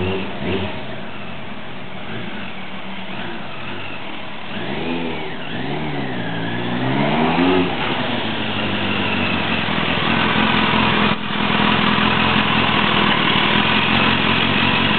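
Kawasaki ZZR1100 inline-four motorcycle with an aftermarket carbon muffler coming back in. Its revs rise and fall several times as it slows, then it runs steadily and louder close by, with a brief dip a few seconds after that.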